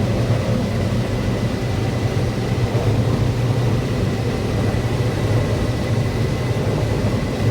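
Heavy farm machine's engine running steadily at constant speed: an even, low drone with a faint thin high whine over it.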